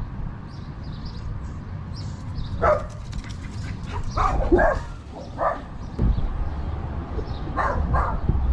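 Small dogs, a Pomeranian and a Yorkshire terrier, giving short, high yapping barks in scattered bursts, over a steady low rumble.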